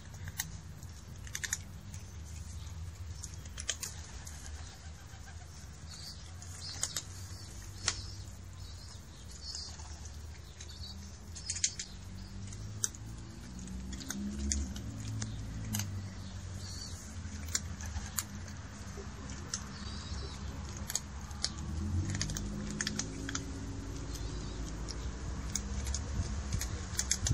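Two cats crunching dry kibble: irregular crisp crunches and clicks, over a low background rumble.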